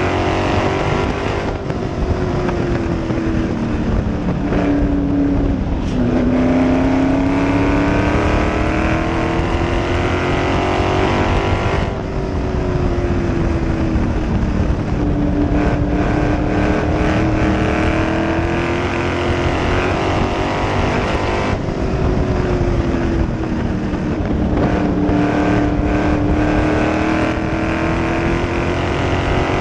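Open-wheel race car's engine running at racing speed, heard from the cockpit. Its pitch dips and climbs again about every ten seconds, easing off for each turn and pulling hard down each straight of the oval.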